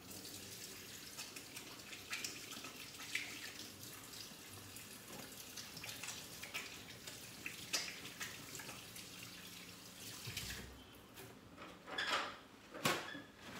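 Water running from a kitchen tap into a sink, off to one side, with splashing. The flow stops about eleven seconds in, followed by two short knocks.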